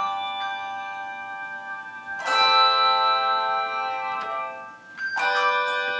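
Handbell choir ringing: chords of bell tones that sustain and slowly fade, with fresh chords struck about two seconds in and again about five seconds in, the loudest.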